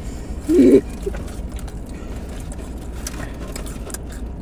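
Mouth-close chewing and crunching of fried chicken wings: scattered faint crunches and clicks over a steady low hum, with a short low vocal sound about half a second in.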